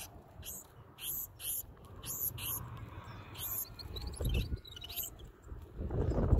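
Black-throated sparrows calling, a string of short, sharp high chips repeated every few tenths of a second, with a quick run of faint, thin twittering notes about four seconds in. Low rustling thumps come about four and six seconds in, the louder one near the end.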